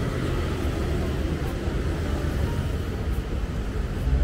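Steady city street noise, mostly a low rumble of passing road traffic.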